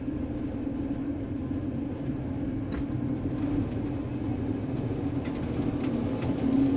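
Steady engine and road noise heard inside the cab of a Winnebago View motorhome under way on the highway, with a steady hum and a few small rattles.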